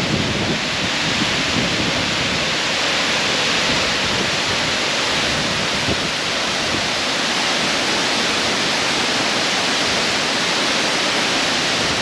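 Steady, loud rush of flowing water.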